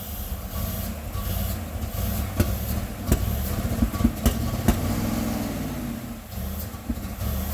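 Chevrolet LT1 350 V8 running rough, with sharp irregular pops and a brief rev that rises and falls about five seconds in. It is misfiring: the owners suspect several injectors are not firing on old, varnished fuel.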